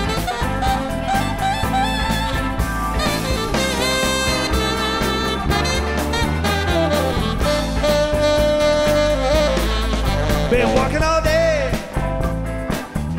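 Jazzy soundtrack music with saxophone and brass over a steady beat and drums, and a singing voice in places.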